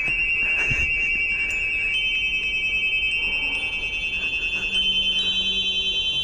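High, sustained ringing tones used for sound-frequency healing, several held together, with a new, slightly higher tone joining every second or so and a faint low hum beneath.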